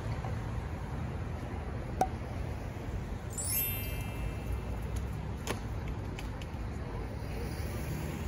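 Steady low rumble of passing city traffic on a multi-lane avenue. A sharp click sounds about two seconds in, a brief high ringing tone a little after three seconds, and another faint click near five and a half seconds.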